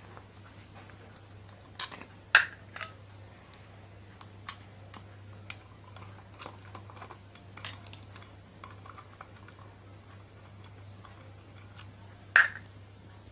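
Screwdriver and screws clicking and clinking against the metal body of a ceiling fan as the body screws are taken out: scattered light ticks, with a few sharp metallic knocks about two seconds in and one more near the end.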